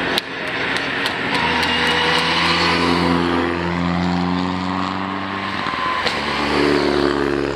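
Mitsubishi Lancer Evolution rally cars driving past at low revs, one after the other, their four-cylinder engines giving a steady droning note. The note changes as the second car follows the first about six seconds in.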